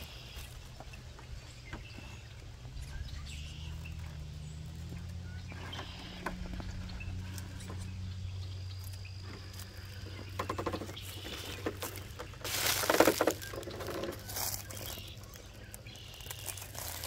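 Traxxas TRX4 1/10 scale RC rock crawler crawling over rocks: scattered clicks and scrapes of tyres and rock, with a louder scrabbling burst about thirteen seconds in, over a low steady hum.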